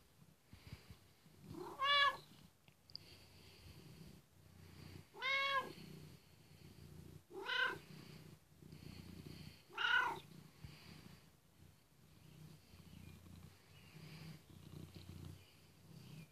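Domestic cat purring steadily while being stroked, with four short meows that rise and fall in pitch, the last about ten seconds in.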